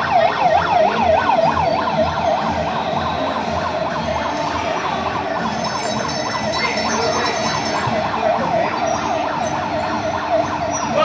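Fire truck siren sounding a fast electronic yelp, its pitch sweeping up and down several times a second, heard from inside the moving truck.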